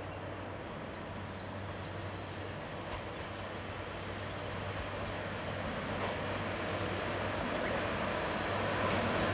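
Diesel railcar approaching along the line, its engine and running noise growing steadily louder.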